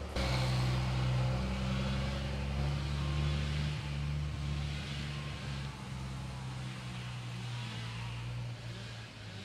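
Engine of a utility bucket truck running steadily at an even, low hum. It gets a little quieter near the end.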